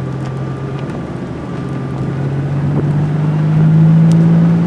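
Off-road vehicle engine running at low speed with a steady drone, getting louder and rising a little in pitch in the second half.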